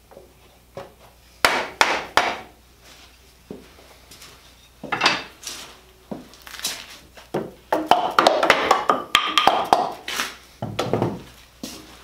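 Wooden knocks and clatter of tools and parts being handled as a turned mallet is freed from a wooden treadle lathe; scattered knocks, busiest about eight seconds in, with a deeper thud near the end.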